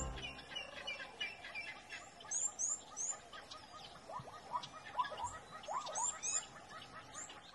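Several wild birds chirping and whistling, with short high sweeping calls and lower rising and falling whistles, over a faint outdoor background.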